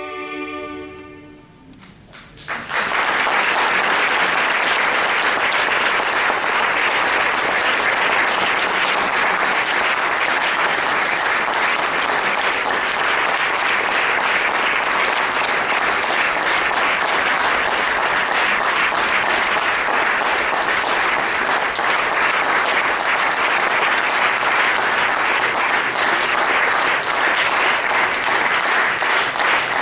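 Music with sustained string tones fades out over the first two seconds, then about two and a half seconds in an audience starts applauding, and the clapping carries on at a steady level.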